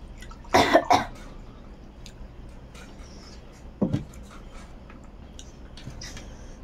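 A woman coughing: two harsh coughs close together about half a second in, and one more near four seconds. Between them come faint wet clicks of eating and of fingers mixing rice and curry.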